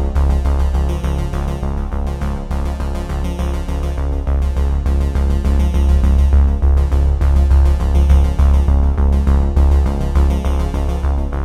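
Background music: an electronic track led by synthesizer, over a steady deep bass with a fast, even pulse.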